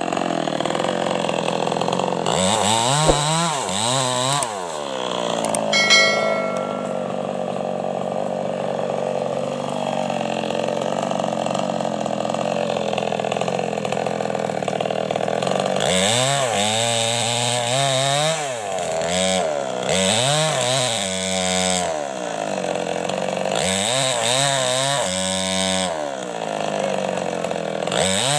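Small two-stroke petrol chainsaw cutting into the base of a standing tree trunk. The engine revs up and drops back again and again as the throttle is worked through the cut, with a steadier stretch of running in between.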